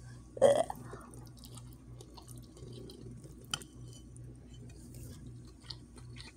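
A fork stirring and twirling soft cooked ramen noodles in a bowl, with faint light clicks and scrapes against the bowl and one sharper click about halfway through. A short vocal sound comes about half a second in.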